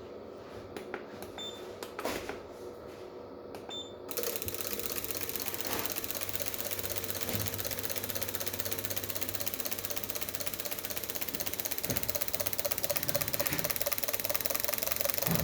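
Fiat Uno Fire engine starting about four seconds in and running with a fast, steady mechanical ticking: the car starts after its ECU's immobiliser has been repaired and disabled. A few faint clicks come before it starts.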